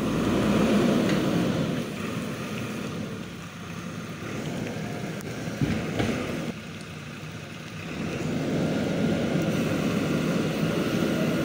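JCB 3DX backhoe loader's diesel engine running, loudest in the first two seconds, easing off in the middle with a couple of short knocks, then getting louder again from about eight seconds in.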